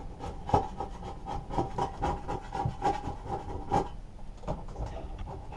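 An old ruler scraping Goo Gone-softened sticker residue off a lawnmower engine's blower housing, in quick repeated strokes about four a second. The strokes stop about four seconds in.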